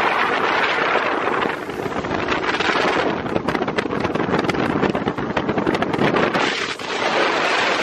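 Heavy wind rushing over the microphone aboard a bass boat running fast across the water, the boat's motor and hull noise under it. From about three seconds in comes a run of sharp crackles.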